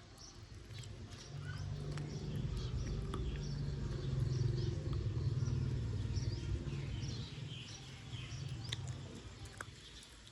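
Small birds chirping repeatedly, over a low rumble that swells over a couple of seconds and fades away near the end.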